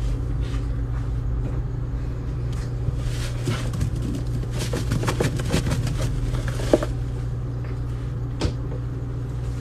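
Baking soda shaken from its box onto a wet, soapy sponge in a sink: a few seconds of soft pattering and rustling as the powder lands, with a sharper tap near the end, over a steady low hum.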